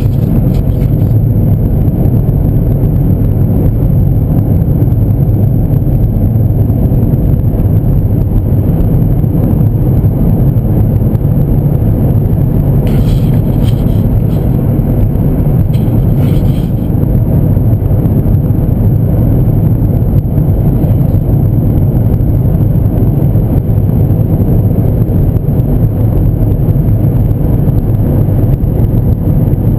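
Steady in-cabin road and engine noise of a 2012 Honda Civic cruising at highway speed, around 50 to 60 mph, with a deep rumble from the tyres and drivetrain.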